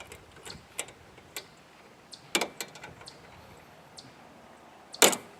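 Small flathead screwdriver prying at plastic push clips: scattered light clicks and ticks, with sharper clicks about two and a half seconds in and again about five seconds in.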